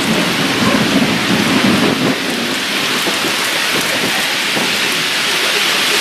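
Heavy rain falling steadily, with a low rumble of thunder for the first two seconds or so that then dies away.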